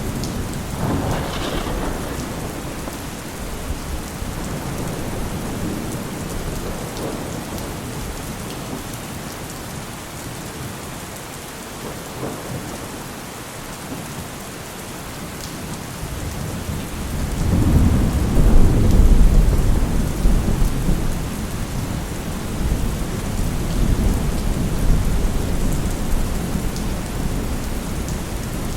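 Heavy rain falling steadily with rolling thunder. A loud, deep thunder rumble builds a little past halfway and slowly dies away under the rain.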